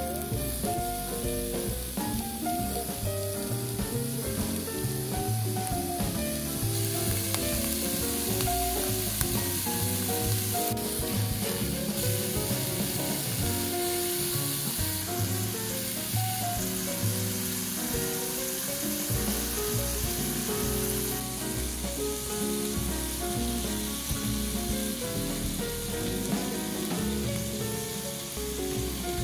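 Bacon-wrapped shimeji mushroom rolls sizzling steadily as they fry in a pan over low heat, with background music playing underneath.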